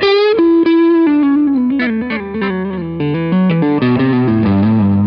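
Gibson 1959 Les Paul Standard reissue electric guitar with Righteous Sound RAF AlNiCo 2 humbuckers, played through a small amp with overdrive and reverb on. It plays a quick single-note lead line that steps down in pitch from a bent note and ends on a low note left ringing near the end.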